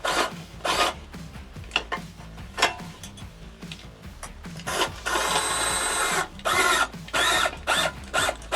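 Cordless drill driving a travel trailer's scissor stabilizer jack in short bursts, with one longer run about five seconds in, lowering the jack toward the ground.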